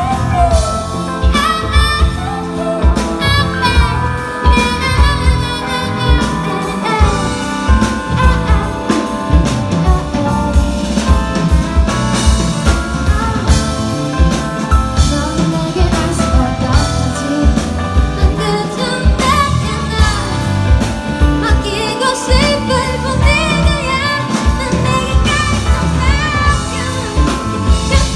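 Live band music with a drum kit keeping a steady beat and a voice singing over it, without clear lyrics.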